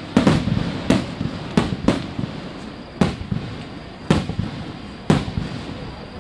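Aerial firework shells bursting: about eight sharp bangs at irregular intervals, roughly one a second, each trailing off in a rolling echo off the surrounding mountains.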